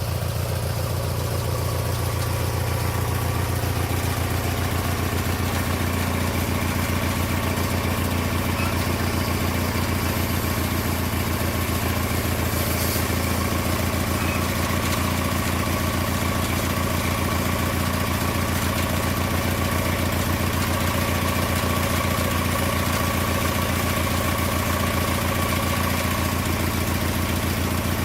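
Small lawn mower engine running steadily on a homemade sawmill, with a higher tone joining about five seconds in.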